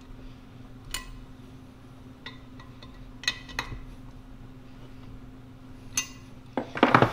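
Steel hand tools clinking against the bolts and fixture plate while the water neck's flange is bolted down with a socket wrench and hex key: a few sharp metallic clinks, each with a short ring, and a louder clatter near the end, over a steady low hum.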